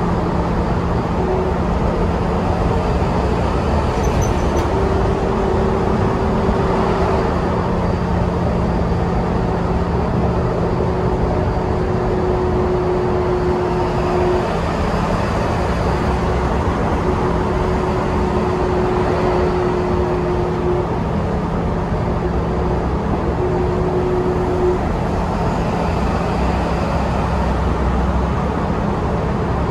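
Cabin noise inside a New Flyer Xcelsior XDE60 diesel-electric hybrid articulated bus cruising steadily. The drivetrain gives a constant low drone under road and tyre noise, and a faint higher hum comes and goes every few seconds.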